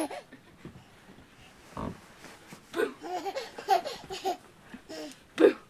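Baby laughing and babbling in short bursts, with a single soft thump about two seconds in.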